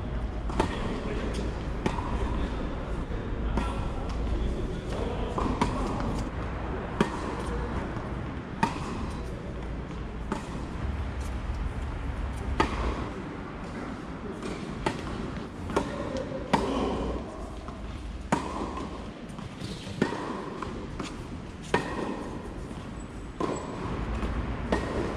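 Tennis balls being struck with racquets in a rally: sharp pops of ball on strings, irregularly spaced about one to two seconds apart, over a low rumble.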